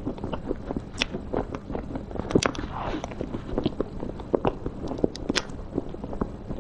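Close-miked mouth sounds of someone chewing soft cream cake: irregular wet clicks and smacks, several a second. A metal spoon scrapes into the cake partway through.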